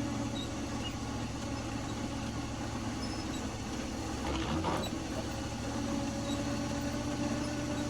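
Vehicle engine running steadily, heard from inside the cabin as a low, even hum, with a brief noise about halfway through.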